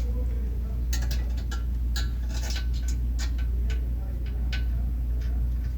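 Irregular metal clicks and ticks of hand tools working on suspension subframe bolts as they are tightened, over a steady low hum.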